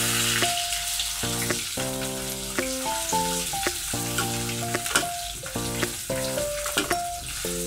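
Rohu fish steaks sizzling in hot mustard oil in a wok, with a few clicks of a spatula against the pan as the fried pieces are lifted out one by one.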